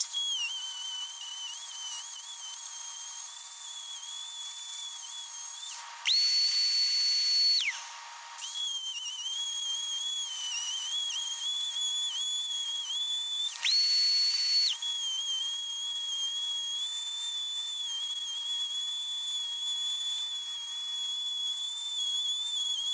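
A Dremel rotary tool with a carbide bit grinds JB Weld epoxy out of a stripped drain bolt hole in an engine case. It makes a high, wavering whine that sags in pitch under load. Twice it jumps to a steadier, higher whine for about a second when the bit is lifted off the work.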